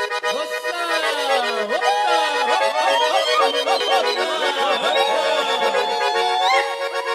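Accordion music: sustained chords held under a melody, with notes that glide up and down over them.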